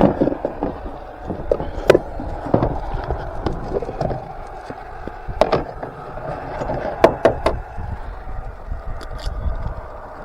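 Eggs being tapped and cracked against a bowl, several sharp knocks and shell clicks, a few in quick succession about seven seconds in. Under them runs the steady hiss of diced potatoes frying in oil in a pan.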